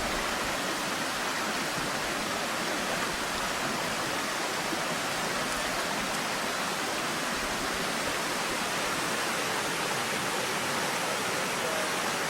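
Flowing river water making a steady, even rushing noise.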